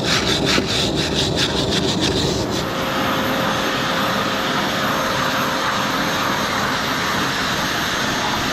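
Brass wire brush scrubbing salty corrosion off an outboard cylinder head's deck, about four to five strokes a second, stopping about two and a half seconds in. Then a handheld electric air tool's motor runs steadily with a faint whine, its nozzle held over the head.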